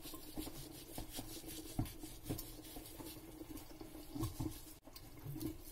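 Faint rubbing and light scattered ticks of salt being pinched and sprinkled by hand over raw fish pieces, with a steady low hum underneath.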